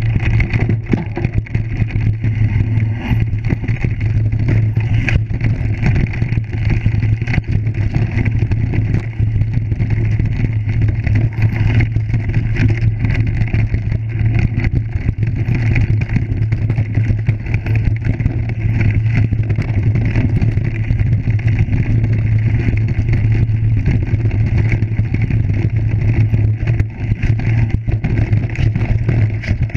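Mountain bike riding down a rocky woodland trail, heard through a GoPro: a steady low drone with a noisy rush, and frequent small knocks and rattles of the bike over the stones.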